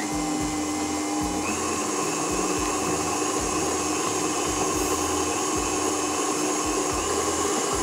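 KitchenAid tilt-head stand mixer running at a steady speed, its beater mixing flour, walnuts and chocolate chips into batter in the steel bowl: an even motor hum.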